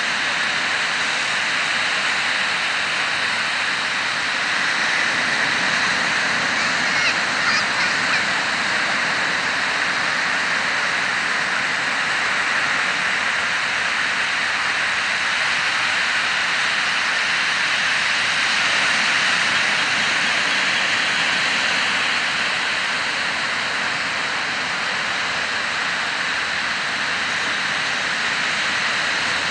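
Ocean surf washing onto the beach in a steady hiss, with a few brief sharp sounds about seven seconds in.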